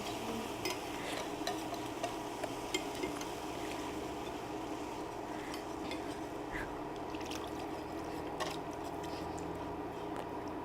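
Milk being poured slowly into a hot butter-and-flour roux in a pan and whisked, with faint clicks of the whisk against the pan over a steady hum.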